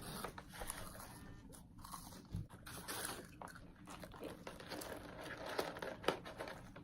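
A person chewing and biting McDonald's food, with faint irregular crunches and small mouth clicks.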